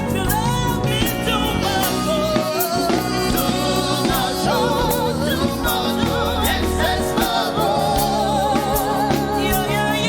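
Live gospel praise-and-worship music: a voice singing held notes with vibrato over a band with drums keeping a steady beat.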